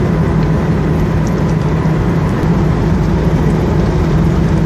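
Steady road noise of a car driving along a highway: a continuous low engine hum under even tyre and wind noise.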